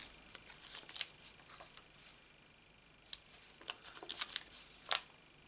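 Die-cut cardstock being handled: faint paper rustles and scattered small clicks, one about a second in and several more close together in the second half.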